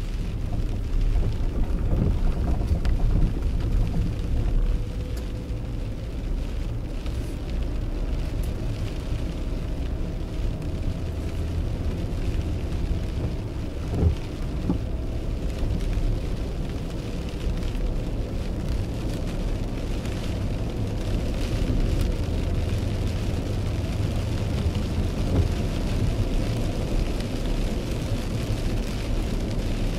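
Inside a car driving on a wet road in heavy rain: a steady low rumble of engine and tyres with the hiss of rain and spray on the windshield and body. A faint whine rises slowly in pitch for several seconds, and a single sharp knock comes about fourteen seconds in.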